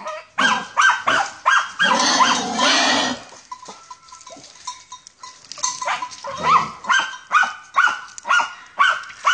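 German hunting terrier (Jagdterrier) barking at a wild boar, holding it at bay: quick, sharp barks two to three a second, broken about two seconds in by a longer, harsher outburst, then a short lull before the barking picks up again.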